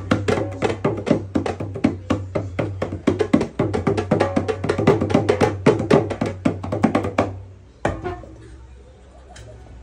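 Drums beaten in a fast run of strokes, about five or six a second. The run stops about seven seconds in, and one last stroke follows a little later.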